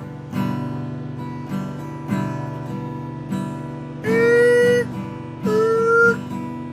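Acoustic guitar strumming a steady rhythm. Two long held notes sound over it about four and five and a half seconds in.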